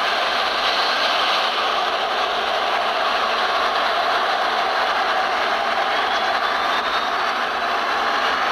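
Steady rushing noise of distant airliner jet engines as aircraft taxi, with a faint high whine slowly rising in the second half.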